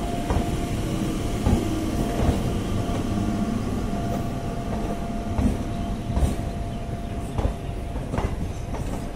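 Indian Railways passenger coaches rolling past with a steady rumble, their wheels clacking over rail joints about once a second. A faint steady whine runs under it and stops about seven seconds in.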